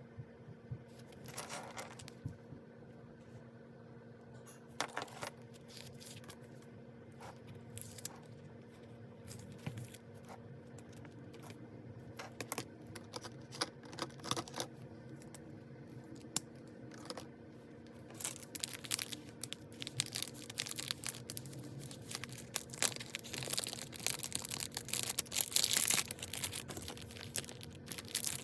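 Paper and stationery being handled at a desk while working in a ring-bound planner: scattered clicks and taps, turning into dense rustling of paper from about two-thirds of the way in, over a faint steady hum.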